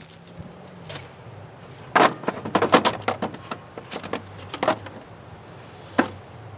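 Hand tools and parts clinking and knocking during work on a truck's radiator: a quick cluster of clicks and knocks about two seconds in, then single knocks a little later and near the end, over a low steady hum.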